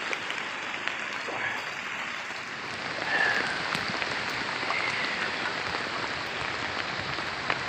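Heavy rain falling steadily, a dense hiss with scattered sharper drop clicks.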